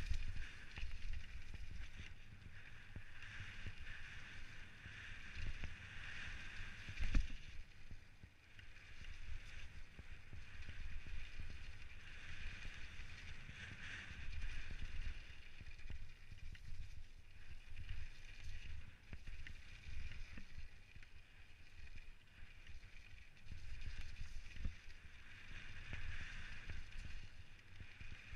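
Mountain bike descending a rough dirt trail, picked up on a helmet camera: tyres rumbling and the bike rattling over the bumps with constant jolts, under a hiss that swells and fades. One hard thump about seven seconds in is the loudest jolt.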